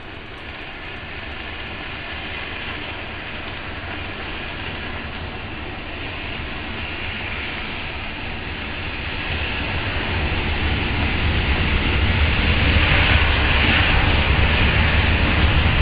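A mass of fireworks burning together: a continuous rushing hiss with a low rumble that grows steadily louder.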